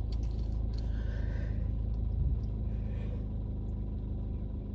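Steady low rumble of a vehicle driving on the road, heard from inside the cab, with a steady hum over it.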